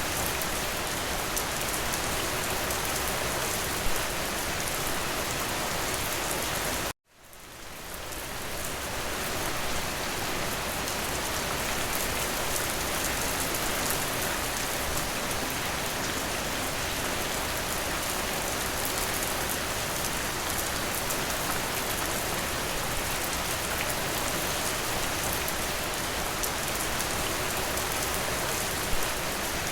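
Steady rain pattering on a surface, an even hiss. About seven seconds in it cuts out abruptly and fades back in over a couple of seconds, the seam of a looped recording.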